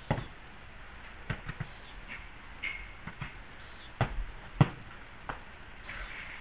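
Padded larp swords knocking and thudding in a mock sword fight: about nine irregular hits over six seconds, the loudest pair about four seconds in.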